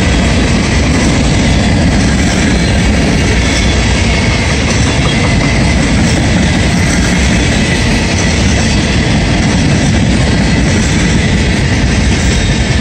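Empty covered hopper cars of a CSX freight train rolling past close by: a steady, loud rumble of steel wheels on the rails with clickety-clack.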